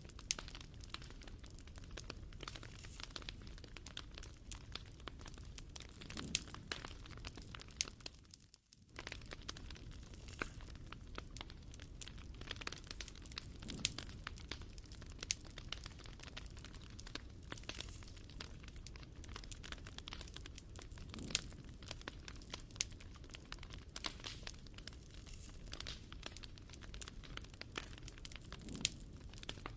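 Wood fire crackling and popping steadily, with scattered sharp snaps over a soft hiss. The sound drops out for a moment about a third of the way through.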